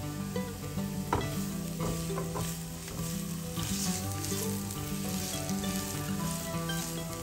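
Diced onion sizzling in hot oil in a nonstick frying pan as it softens, with a spatula stirring and scraping it across the pan a few times.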